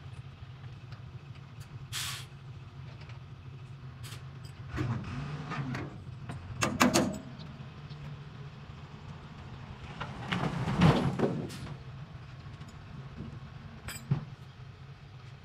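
Metal clanking and scraping in irregular knocks, the longest spell about two thirds of the way in, over a steady low mechanical hum.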